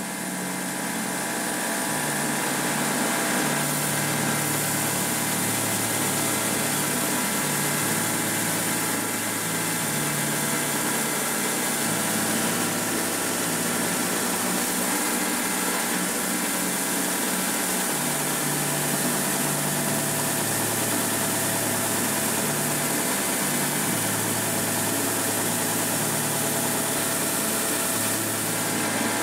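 Hegner belt sander and its dust extractor running together, a steady machine noise as a clamped stack of wood samples is sanded on the moving belt. The noise swells over the first couple of seconds and then holds steady.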